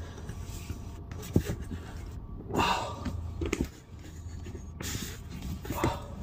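A man breathing hard with effort while straining to pull a rubber slide seal into place, with breathy exhalations about two and a half seconds in and again near the end, and a short knock about a second in.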